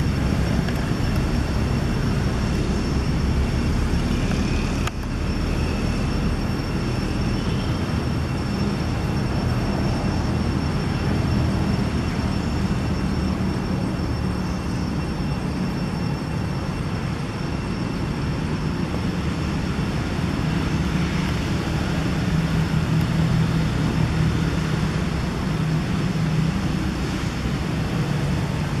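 Steady low rumble of outdoor background noise, like distant engine or traffic noise, with a thin steady high-pitched tone running above it.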